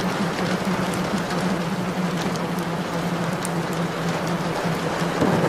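Steady rain with scattered drop ticks, over a low steady hum that wavers between two close pitches.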